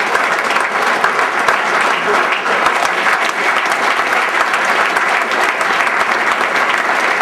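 Audience applauding: a room of many people clapping at a steady, even level.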